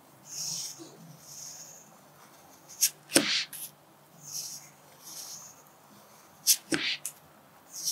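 Pencil writing on paper laid on a clipboard: soft scratchy strokes as cursive lowercase letters are drawn, with two pairs of sharper, louder scratches, one near the middle and one later.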